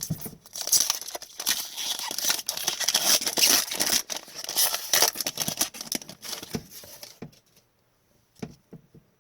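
Foil wrapper of a trading card pack being torn open and crinkled, a dense crackly rustle lasting about seven seconds, followed by a few light ticks of handling.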